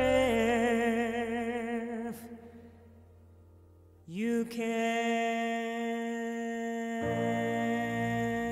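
Closing bars of a slow song: a long sung note with vibrato fades out about two seconds in, and after a short lull another long note is held, with a low bass note joining near the end.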